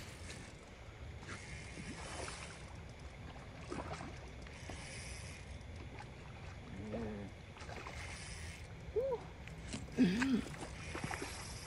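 Small waves washing at the water's edge, a steady low rush that swells every few seconds, with faint voices now and then in the last few seconds.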